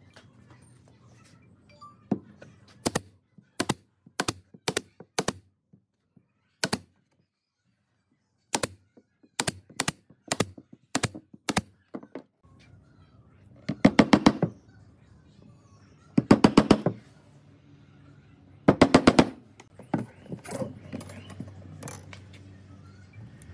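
Cordless impact driver hammering in three short bursts of rapid impacts, driving screws into pallet wood. Before the bursts come a dozen or so sharp single clicks at uneven intervals.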